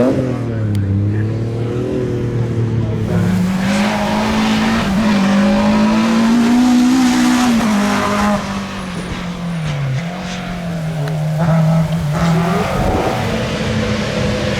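Rally car engine revving hard through the gears on a tarmac stage, the note climbing and falling repeatedly, with sharp drops in pitch about eight and ten seconds in as it lifts off and shifts.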